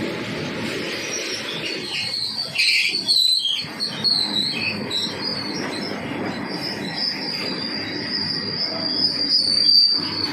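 A train running past on the rails, with a steady rumble of wheels and a high-pitched wheel squeal that wavers at first and then holds steady in the second half.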